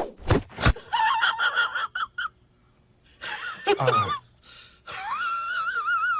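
Brief loud rustling or scraping noise at the very start, then a cat meowing: several short meows, then one long, wavering yowl from about five seconds in.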